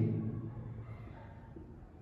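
A brief pause in a man's lecture: the end of his voice fades out in the first moment, leaving faint room tone.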